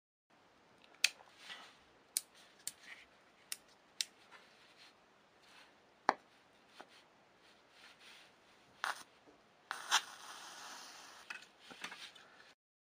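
Cardboard crackling and popping as a 100 W blue diode laser beam burns through it: irregular sharp snaps, with a stretch of hissing about ten seconds in.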